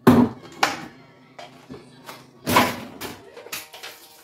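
Food containers and cans being handled and set down on a kitchen counter: a few sharp knocks and clatters, the loudest right at the start and about two and a half seconds in, with lighter clicks between.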